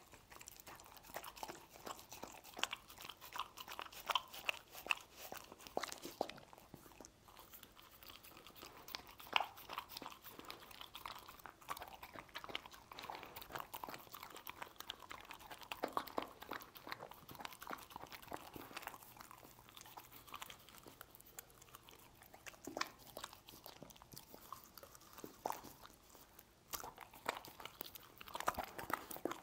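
A dog chewing and crunching mouthfuls of stir-fried meat, with a continuous, irregular run of sharp crunches, bites and mouth clicks.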